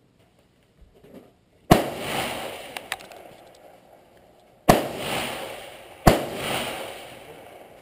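Three rifle shots: the first about two seconds in, the second about three seconds later, the third a second and a half after that, each followed by a long echo that dies away over a second or two.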